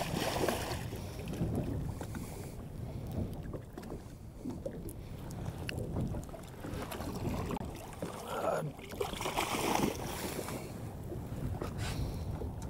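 A hooked tope splashing at the surface beside a small boat as it is pulled in by hand, in bursts near the start and again later, over a steady rumble of wind on the microphone.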